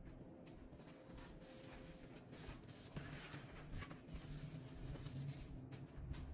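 Faint rustling and a few soft knocks as plastic serving platters are handled and shifted on a kitchen countertop.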